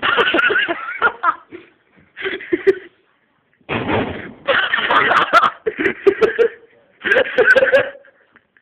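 Loud, wordless shouting and laughing from young men, in about five bursts with short silences between.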